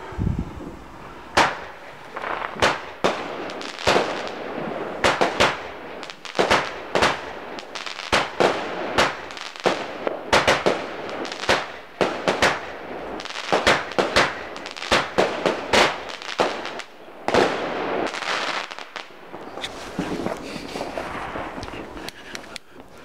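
Consumer firework barrage cake firing a long series of shots, one to two bangs a second at uneven spacing, with crackling between them.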